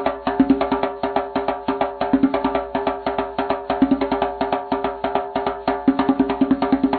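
Short music cue built on fast, even wood-block-like percussion, about seven clicks a second, over steady pitched notes.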